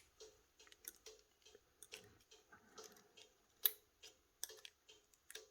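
Faint, irregular small clicks and taps of hand tools on smartphone parts during disassembly, with one sharper tap a little past the middle.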